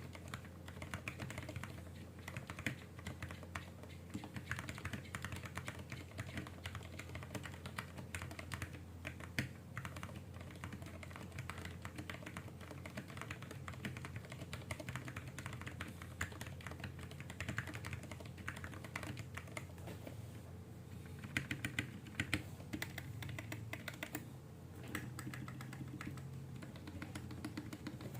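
Continuous fast typing on a 64-key mechanical keyboard with lubed Gateron Brown tactile switches, GSA profile keycaps and clipped stock stabilizers, in a plastic case dampened with foam: a dense, irregular patter of key strokes, with a few louder strokes a little past the middle.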